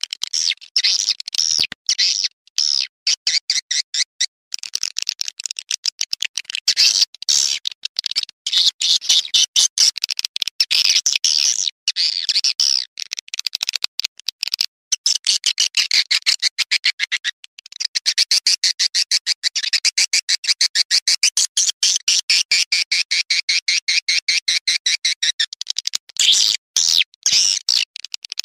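Swiftlet calls: dense, high-pitched trains of rapid chattering clicks and twitters, broken by a few short pauses about halfway through. This is an edited swiftlet call recording of the kind played from speakers to lure swiftlets into a nesting house.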